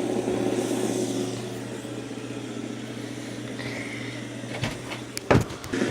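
Fidget spinners whirring on their bearings as they spin down, the whir fading over the first couple of seconds. A few sharp knocks come near the end.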